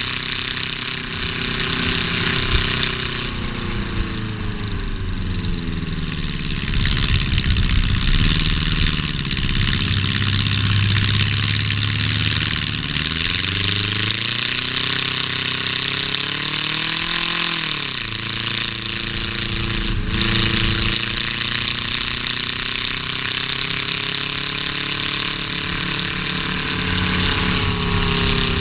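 Race car engine heard from inside the stripped cabin, running hard with its pitch rising and falling as the throttle is worked, and a sharp drop and recovery a little past halfway. A dense rattle and road noise run under it.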